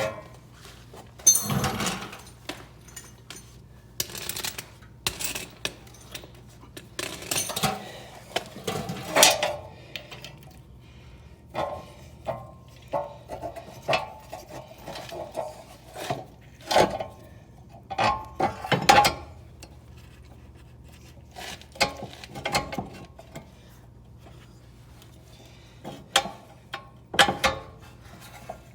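Irregular metallic clinks and clanks of hand tools against a rear brake caliper, as a caliper compression tool is tightened and a T40 bit is turned to wind the piston back in.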